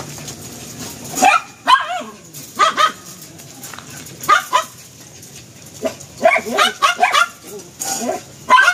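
Dog whining and yelping in short, high, wavering cries, coming in clusters every second or two while a male mounts a female German Shepherd for mating.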